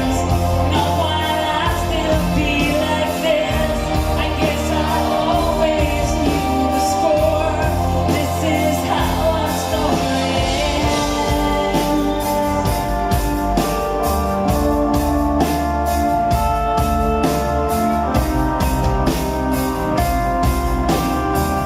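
A live rock band playing a slow song with a woman singing lead. About halfway through the voice drops out and the band carries on with held chords over a steady beat of about two strokes a second.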